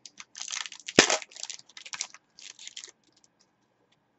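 A trading-card pack's wrapper crinkling and tearing as it is opened by hand: crackling for about three seconds, with one sharp snap about a second in.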